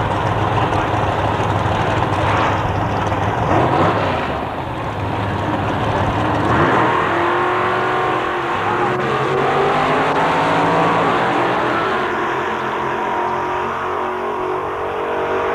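Two gasoline drag-racing cars' engines rumbling and revving at the starting line, then launching about six or seven seconds in and accelerating hard down the strip, the engine note climbing in pitch as they pull away.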